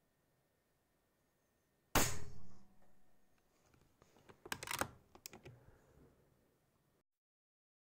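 A single shot from an Altaros M24 .22 PCP air rifle about two seconds in: a sharp crack that dies away within about half a second. A couple of seconds later comes a quick run of sharp mechanical clicks as the rifle's action is worked.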